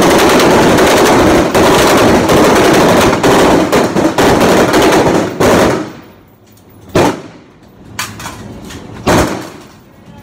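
Several M4 carbines firing on a range, the shots overlapping into a dense, continuous volley for about six seconds, then three single shots about a second apart.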